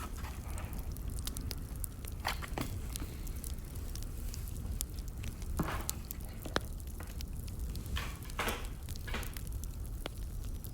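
Wood fire burning, with irregular sharp crackles and pops over a steady low rumble, and a few brief louder rushes.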